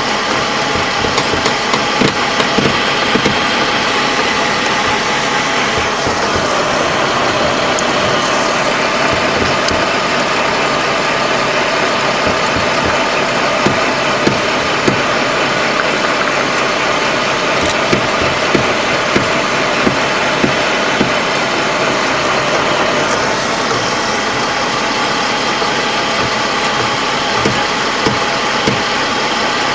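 LAV III armoured vehicle's diesel engine running steadily, heard from inside the vehicle, with short sharp knocks now and then over it.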